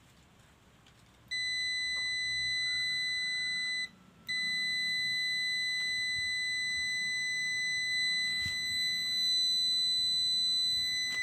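Continuity beeper of a Sigma SG678 digital clamp meter sounding a steady high beep as the two test probe tips are touched together, showing a closed circuit. It cuts out briefly a few seconds in, then sounds again.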